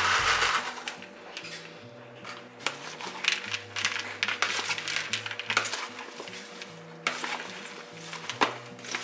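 A loud rush as chopped dried cranberries and pecans slide off a flexible cutting mat into a big plastic bowl of salad, then a wooden spoon scraping and clacking against the bowl as the salad is tossed, with background music.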